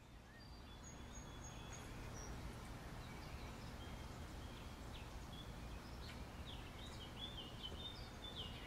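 Faint birdsong: short high chirps and whistles over a low steady background noise, fading in at the start and growing busier toward the end.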